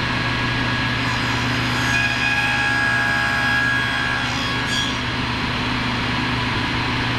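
Table saw running with a steady motor hum while its blade cuts through a wood workpiece for about four seconds, adding a higher whine over the hum.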